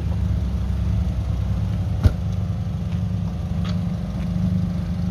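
Car engine idling steadily with a low, even note, and a single sharp click about two seconds in.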